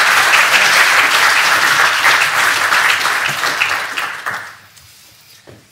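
Audience applauding in a lecture theatre, a dense steady clapping that dies away about four and a half seconds in.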